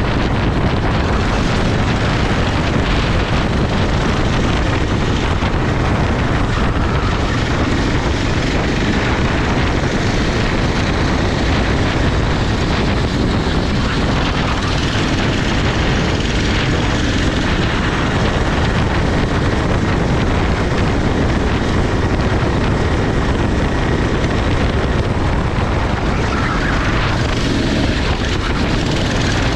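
Go-kart engine running at racing speed, a loud, steady engine and rushing noise with no letup.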